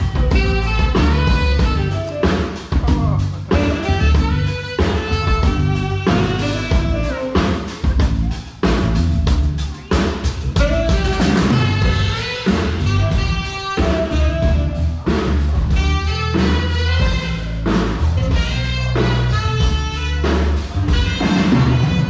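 Band music with a drum kit keeping a steady beat under a strong bass line and melody instruments.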